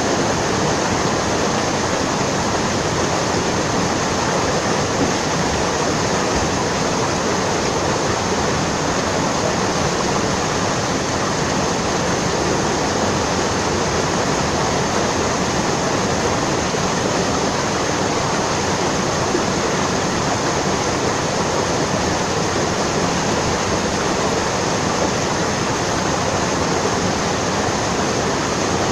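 Steady rush of flowing water, an even unbroken noise with no distinct splashes standing out.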